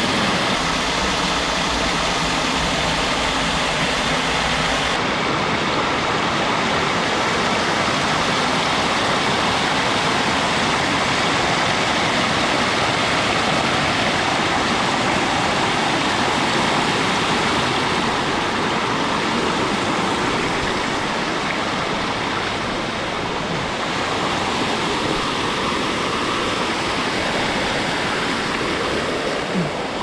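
Water rushing and pouring over the limestone ledges of a cascading waterfall, close by and loud. The steady rush shifts in tone abruptly about five seconds in.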